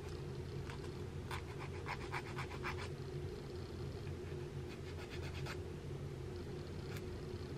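Light scratching strokes from a hair comb being handled: a quick run of about eight near two seconds in, a few more around five seconds and a single click near the end, over a steady low hum.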